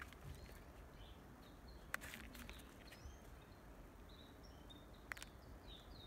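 Near silence with faint, short bird chirps scattered throughout, and two sharp clicks, one about two seconds in and one about five seconds in.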